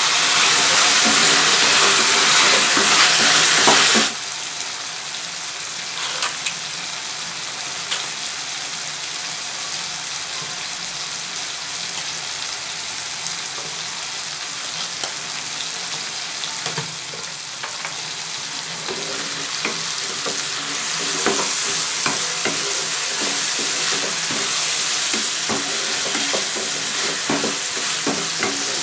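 Chopped brinjal, raw mango, onion and tomato sizzling in hot oil in a pan, with a wooden spatula stirring and scraping through them. The sizzle is loud for the first four seconds, drops suddenly to a quieter frying with scattered clicks of the spatula, and builds again over the last third.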